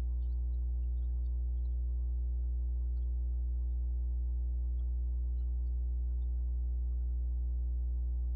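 Steady electrical mains hum in the audio line: a low, unchanging drone with a ladder of fainter higher overtones, and nothing else.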